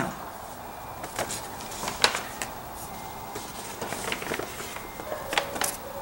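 Cardboard package being handled: scattered light taps and knocks, the sharpest about two seconds in, over a faint steady hiss.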